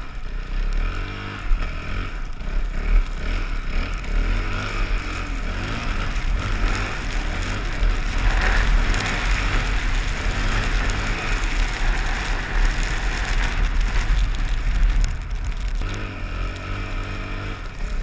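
ATV engine running under throttle, its pitch rising and falling as it is revved through deep snow, with a rushing noise swelling in the middle.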